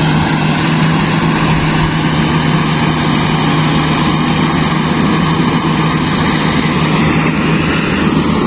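Combine harvester's diesel engine and threshing machinery running steadily at constant speed, a loud even hum.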